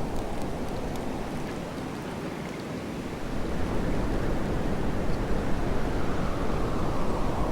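Blizzard wind blowing in gusts through a forest: a steady, deep rush that eases about two seconds in, then builds again about a second later.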